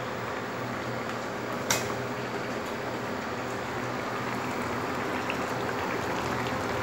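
Egg-and-potato curry boiling steadily in a kadai on an induction cooktop, a continuous bubbling as the watery gravy cooks the potatoes through, over a low steady hum. A single sharp click about a second and a half in.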